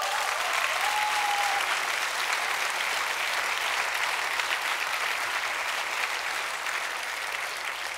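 Large audience applauding steadily, tapering off near the end.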